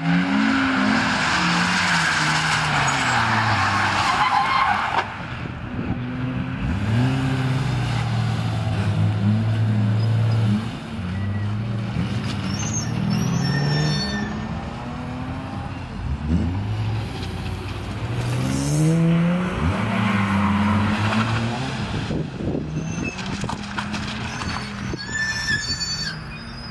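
BMW E34 M5 3.8's straight-six engine revving up and down repeatedly as the car drifts, with tyre squeal, loudest in the first five seconds and again around twenty seconds in.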